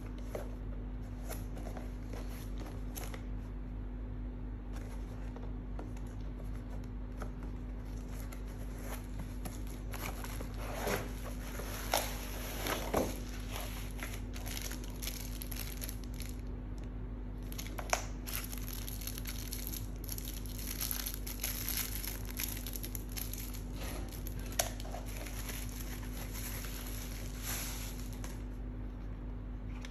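Bubble wrap and plastic packaging crinkling and rustling as a keyboard is unwrapped by hand, with a few sharp knocks along the way. A steady low hum lies underneath.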